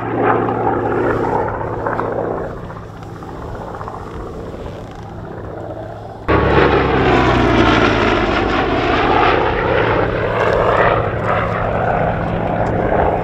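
Goodyear FG-1D Corsair's 18-cylinder R-2800 radial engine and propeller droning in flight. The sound sinks somewhat for a few seconds, then jumps abruptly louder about six seconds in, with a slow swooping shift in tone as the plane passes.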